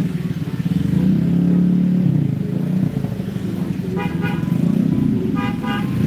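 Road traffic: a vehicle engine running with a steady low drone. A horn gives two quick short toots about four seconds in, and two more near the end.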